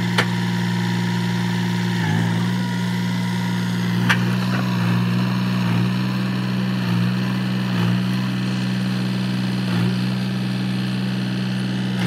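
Tractor diesel engine idling steadily, with brief dips in its note several times. Sharp clicks come just after the start and about four seconds in.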